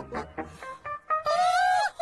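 Two high-pitched female cartoon voices laughing wickedly together in quick falling pulses over comic background music, ending in one long drawn-out note.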